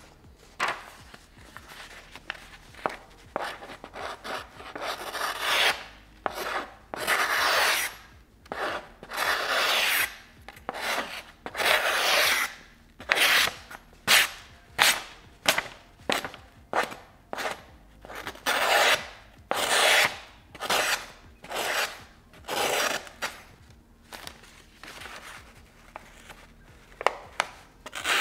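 Shun Premier nakiri knife slicing through a sheet of paper, stroke after stroke. The cuts are rasping and hissing, some long and drawn, some quick and short.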